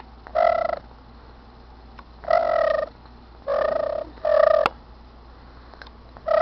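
Tabby cat meowing: five short, fairly steady-pitched meows at uneven intervals.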